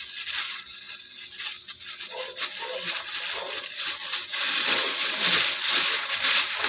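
Clear plastic bag crinkling and rustling as hands pull it open over clams sitting in water, with some water sloshing. The noise grows louder about four seconds in.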